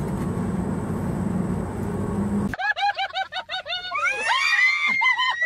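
Steady outdoor background noise that cuts off suddenly about two and a half seconds in. Then comes a fast run of high-pitched shrieking laughs from a girl, with a long rising squeal near the end.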